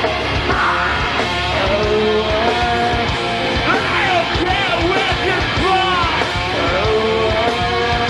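Live rock music: a singer's voice over guitar and a full band.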